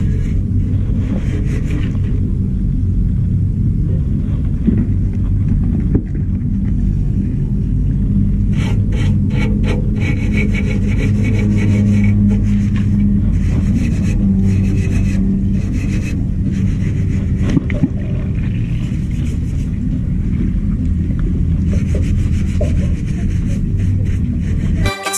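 Hand scrubbing the wet, paint-stripped steel frame of a Honda EX5 motorcycle, in many short, irregular rubbing strokes over a steady low rumble.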